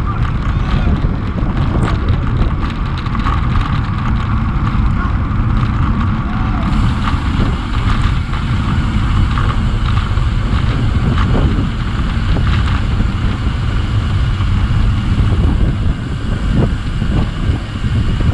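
Steady wind rush buffeting the microphone and tyre rumble from a road bicycle riding along a paved road.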